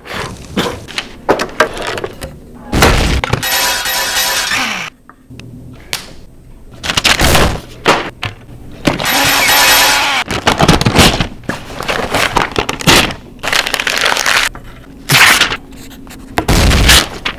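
Exaggerated added sound effects: a quick run of crashes, breaking and shattering sounds and explosion booms, played over music.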